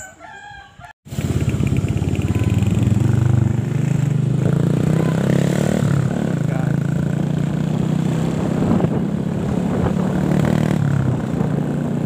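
Motorcycle engine running steadily while the bike rides along a road, heard from on the motorcycle. It follows a brief moment of faint voices that cuts off sharply about a second in.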